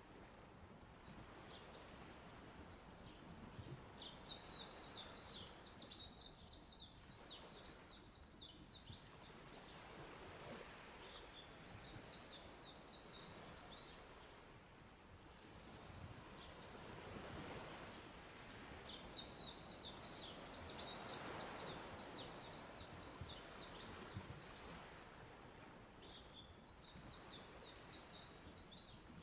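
Birds singing in about five phrases of rapid, chattering high notes, each lasting a few seconds, over a soft, steady wash of sea waves that swells twice midway.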